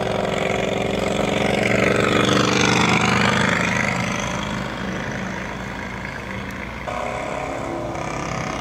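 Recorded Harley-Davidson V-twin engine sound played through an electric sportbike's loudspeakers as the bike rides past, a steady low engine note that swells and fades, changing abruptly about seven seconds in.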